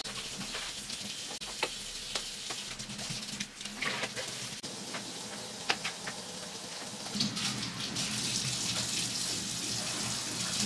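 Kitchen tap running steadily into the sink as collard green leaves are rinsed under it, with a few sharp knocks in the middle. The water sound grows fuller again about two-thirds of the way through.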